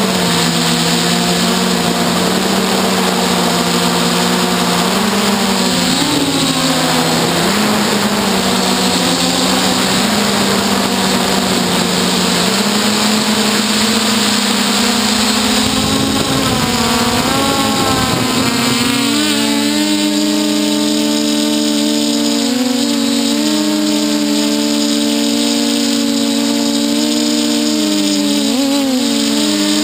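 Hexacopter's electric motors and propellers whining in flight, heard through the onboard camera: several close tones that shift in pitch together as the throttle changes. About two-thirds of the way in, a low rushing noise under them stops and the motor tones step up in pitch.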